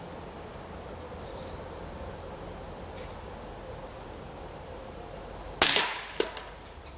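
Ruger Air Hawk break-barrel spring-piston air rifle fired once: a single sharp crack about five and a half seconds in, followed by a smaller click a moment later.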